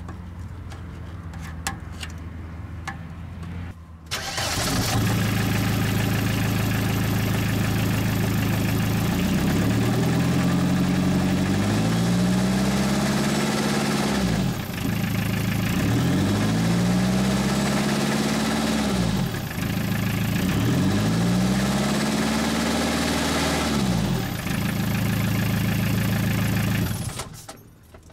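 Faint low hum for the first few seconds, then a car's engine and exhaust, its broken pipe sealed with a hardened exhaust bandage and paste, comes in suddenly and runs at idle. The engine is revved three times, rising in pitch and falling back each time, and it cuts off sharply near the end.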